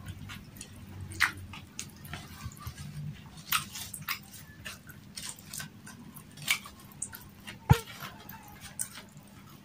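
Close-up eating sounds: chewing with wet lip smacks and mouth clicks, while food is picked up by hand. A single sharp knock about three-quarters of the way through.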